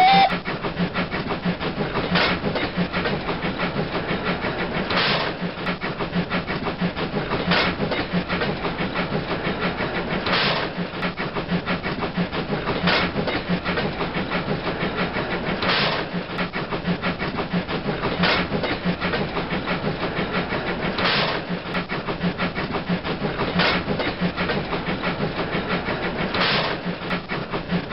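LGB garden-scale model train running along its track: a steady mechanical running noise with a short, louder burst about every two and a half to three seconds. A held whistle tone cuts off right at the start.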